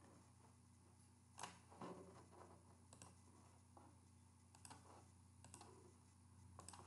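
Faint computer mouse clicks, about half a dozen scattered over several seconds, against near silence.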